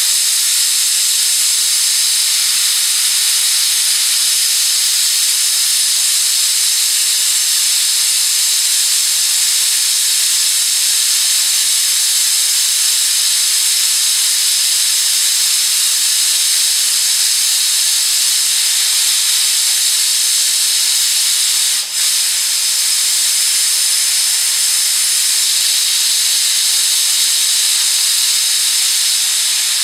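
Stovetop pressure cooker venting steam through its vent pipe in a loud, steady hiss, its weighted pressure regulator held lifted to let the pressure out. The hiss dips for an instant about two-thirds of the way through.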